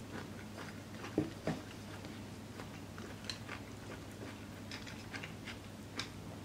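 Close eating sounds of a person eating from a bowl with chopsticks: chewing and scattered small clicks, with two louder soft knocks a little over a second in.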